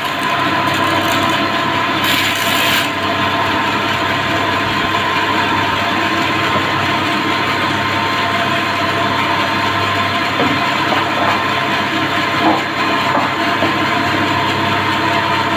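Band saw running steadily with a constant hum; for the first few seconds its blade cuts through a wooden board with a rasping noise, then it runs on without cutting. A few light knocks near the end.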